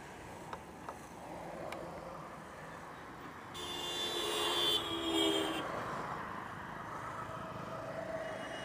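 Background road traffic, with a vehicle horn sounding for about two seconds over a passing vehicle from about three and a half seconds in. A few small plastic clicks in the first two seconds come from handling the cap of the additive can.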